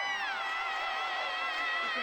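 Music: a high held note with vibrato that slides down in pitch about a third of a second in, then holds steady.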